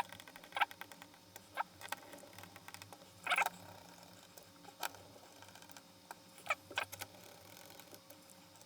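Scattered small clicks and taps of screws being handled and fitted into a laptop's plastic bottom case, the loudest about three seconds in.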